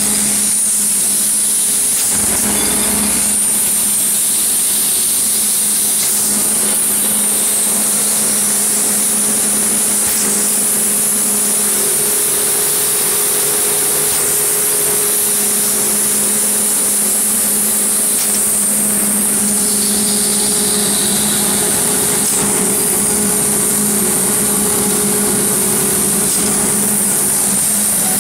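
GT6/12 steel wire straightening and cutting machine running: a steady mechanical hum with a high-pitched hiss over it.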